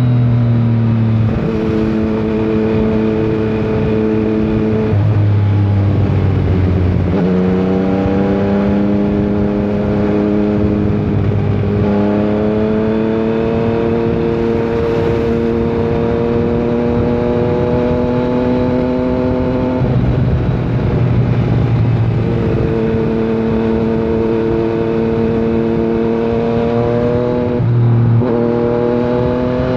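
Yamaha MT-09's three-cylinder engine running under way, its note climbing and easing with the throttle and stepping in pitch at several gear changes.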